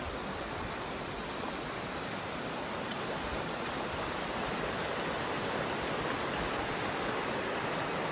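Shallow mountain creek running steadily over stones and small rocky riffles, a constant rushing of water.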